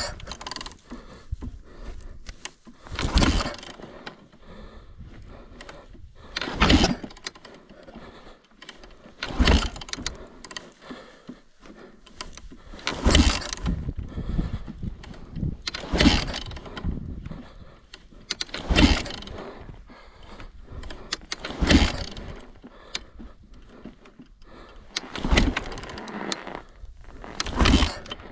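Yamaha YZ450 four-stroke single-cylinder dirt bike engine being kick-started again and again, about once every three seconds. Each kick turns the engine over in a short burst, but it does not catch and run: the freshly rebuilt engine is failing to start with the choke on.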